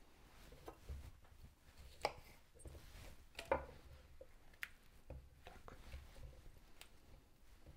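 Raw cauliflower florets being snapped apart by hand and set down on a wooden cutting board: scattered faint crisp cracks and light knocks, the loudest about three and a half seconds in.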